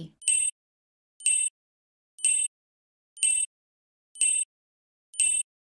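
Countdown timer sound effect: a short, high tick once a second, six times, each in step with the on-screen flip clock counting down.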